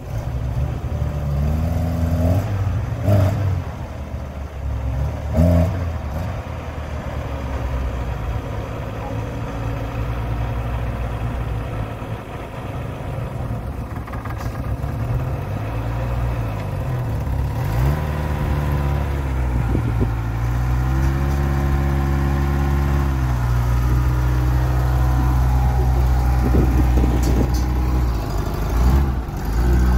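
Small 4x4 off-roader's engine revving as it climbs and crawls through a muddy trial section, the pitch rising and falling again and again, then held high and steady in the second half. Two sharp knocks a few seconds in.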